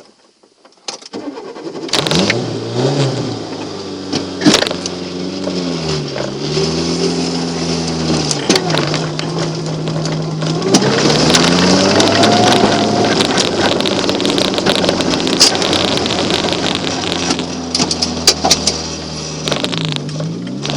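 Volkswagen Golf Mk2 1.3 four-cylinder petrol engine catching and starting about two seconds in, then revving up and down several times, with a long climb in revs about halfway through. A few knocks sound over it.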